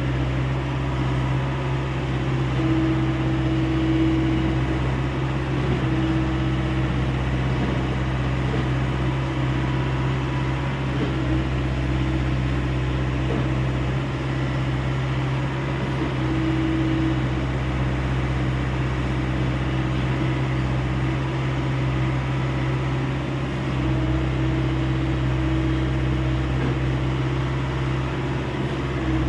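Hyundai 85A SMART excavator's diesel engine running steadily, with a higher whine that comes and goes several times.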